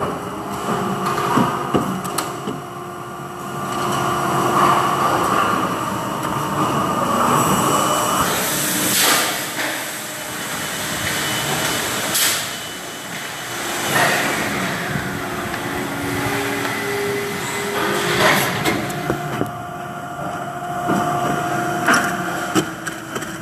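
Factory machinery running: a steady mechanical drone with several held tones, broken by a few sudden sharp sounds about 9, 12 and 18 seconds in.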